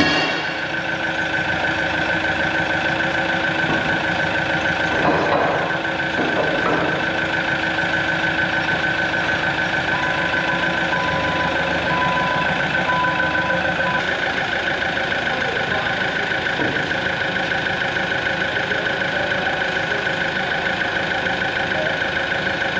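A diesel engine running steadily with a high whine over it. A short series of beeps sounds about halfway through.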